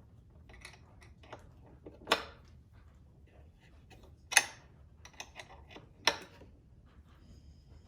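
Scattered clicks and knocks of a hand tool on a screw and mirror hardware, with three louder knocks about 2, 4½ and 6 seconds in, while a tow mirror mounting screw is snugged down.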